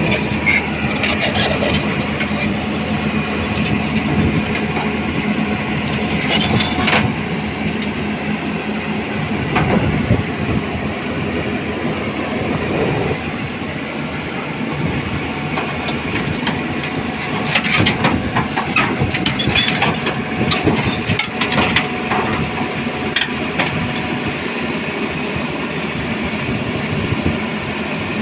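Heavy diesel machinery running steadily with a constant engine drone, and scattered clanks and knocks, most of them in the second half.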